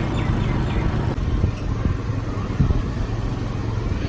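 Steady low rumble of a motor vehicle running, with engine and road noise.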